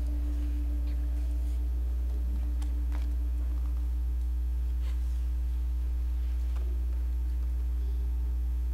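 Steady low electrical mains hum, with a faint steady higher tone over it and a few soft, scattered knocks.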